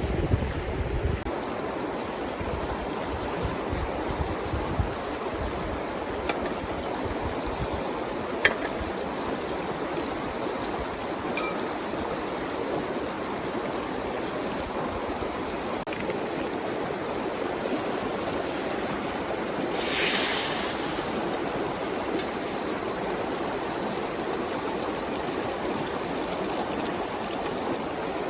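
River water flowing steadily, with a low wind buffet on the microphone in the first second, a few faint clicks, and a brief hiss about two-thirds of the way through.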